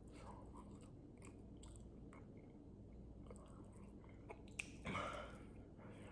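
Faint chewing of an oil-soaked homemade potato chip, with a little crunch in small scattered clicks. A short breath comes about five seconds in.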